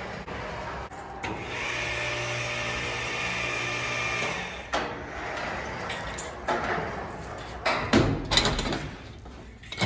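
Electric chain hoist motor running steadily for about three seconds as it lifts a stripped V8 engine block, followed by sharp metallic clanks and knocks, loudest near the end.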